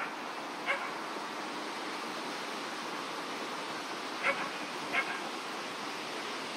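A dog barking: two short barks near the start and another pair about four seconds later, over a steady background hiss.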